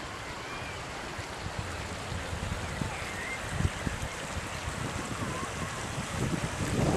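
Floodwater rushing steadily, a continuous wash of water noise, with gusts of wind buffeting the microphone.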